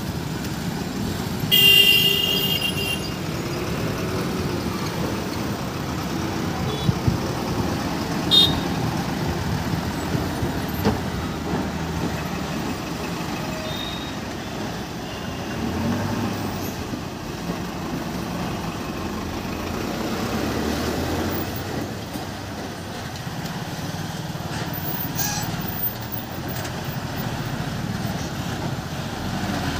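Slow mixed road traffic of motorcycles, trucks and a bus, engines running steadily. A vehicle horn honks for about a second, two seconds in, and a few short toots follow later.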